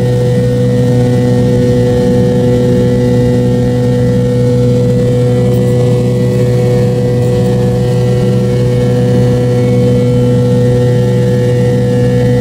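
Pratt & Whitney JT8D-219 turbofan engine of an MD-88 running steadily in flight, heard from the cabin right beside the tail-mounted engine: a loud, even drone with a low hum and steady higher whining tones.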